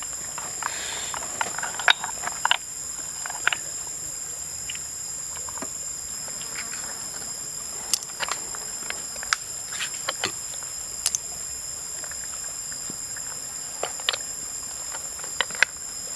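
Snail shells and crab shells clicking and knocking against each other and the metal wok as they are set in place by hand, in short irregular taps. Behind them, a steady high-pitched insect drone.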